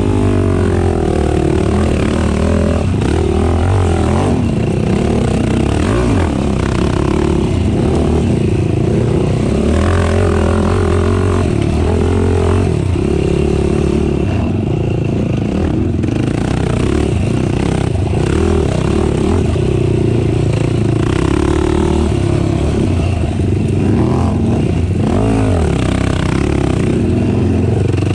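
Racing ATV engine running hard, its pitch rising and falling over and over as the throttle is opened and closed.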